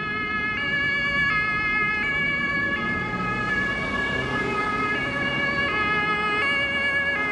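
German two-tone emergency siren (Martinshorn) on a Red Cross ambulance, switching back and forth between a high and a low note about every three-quarters of a second, over low traffic and engine noise.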